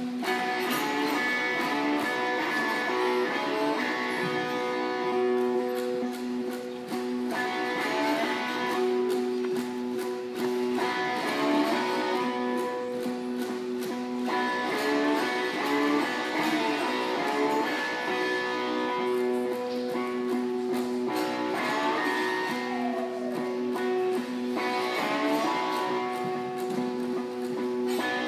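An ensemble of homemade cigar box guitars and a guitar strumming a blues tune together, with a steady drone held under the changing chords.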